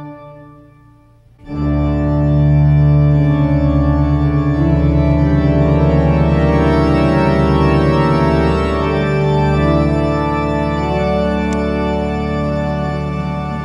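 Organ music: sustained chords over a deep, steady bass note. The music fades briefly at the start and comes back in full about a second and a half in.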